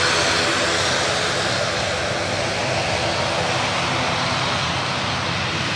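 ATR twin-turboprop airliner rolling along the runway after landing, its engines and propellers running in a steady drone that eases slightly as it moves away.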